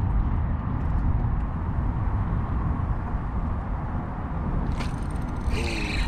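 Wind buffeting the microphone as a steady low rumble. Splashing comes in near the end as a hooked largemouth bass nears the surface.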